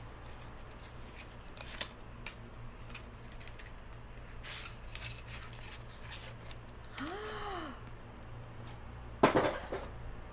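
Product packaging being handled and opened by hand: scattered small clicks and snips, with a louder cluster of rustling clicks about nine seconds in.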